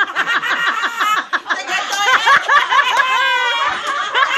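An old man's voice talking and laughing in quick, high-pitched bursts, with laughter around him.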